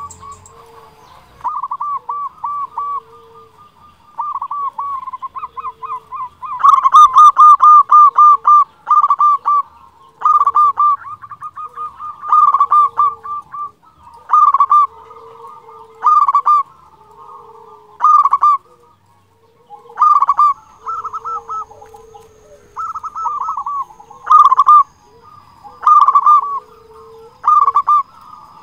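Zebra dove (perkutut) cooing: short phrases of rapid, rolling coos repeated about every two seconds, with a longer, louder run of coos about a quarter of the way in.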